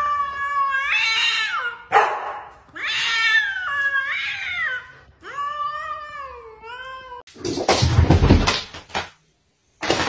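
Cats yowling: three long, wavering, drawn-out caterwauls of the kind cats make when squaring off. About seven and a half seconds in, the yowls give way to a loud noisy burst lasting over a second.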